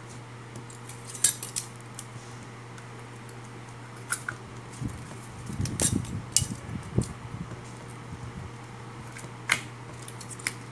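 Thin steel E-I transformer core laminations clinking and scraping as they are handled and slid into the coil bobbin two at a time, with a few sharp metallic clicks. Under them runs a steady low hum.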